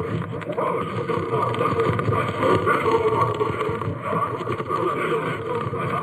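Siren Head creature sound effect: loud, continuous harsh noise with a rough, fluctuating texture and no clear pitch.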